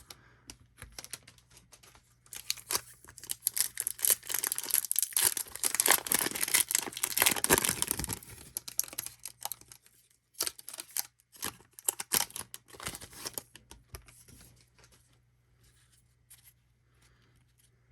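Foil wrapper of a Topps Stadium Club baseball card pack being torn open and crinkled, most intensely from about 2 to 8 seconds in. Then come a few sharp clicks and light shuffling as the cards are handled, dying away near the end.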